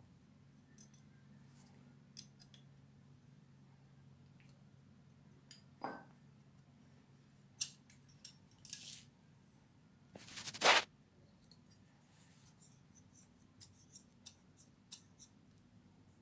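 Large steel shears with brass handles being worked open and shut by hand: quiet scattered metal clicks and a few short blade swishes, the loudest swish about two-thirds of the way through.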